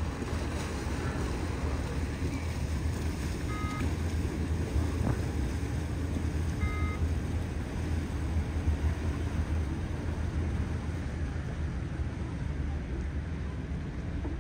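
Steady low rumble of waterfront ambience, with two short electronic beeps about three seconds apart a few seconds in.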